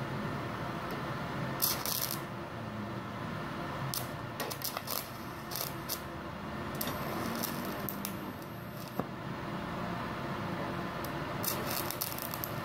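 TIG welding arc on steel, powered by a MultiPro MIG-MMA/TIG 160 AS-MZ inverter welder running on argon: a steady low hiss broken by clusters of sharp crackling clicks every couple of seconds. A faint high whine comes in for about two seconds past the middle.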